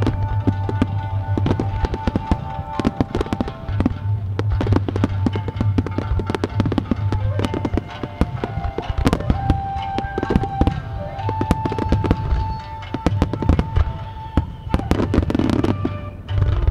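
Fireworks display: many aerial shells bursting in quick succession, dense sharp bangs and crackle with no pause, while music plays along with held notes and a heavy bass.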